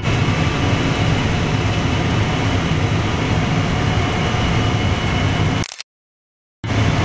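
Steady flight-deck noise of a Boeing 787-8 Dreamliner on final approach: a rush of air over a low hum. It cuts to silence for most of a second near the end, then comes back.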